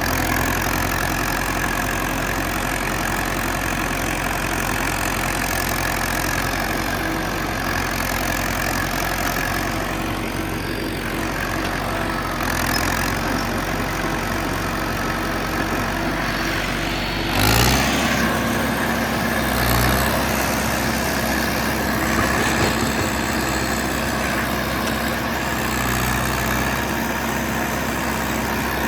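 John Deere 450C crawler dozer's diesel engine running steadily. About two-thirds of the way through, its note changes abruptly with a brief louder surge, and two shorter surges follow.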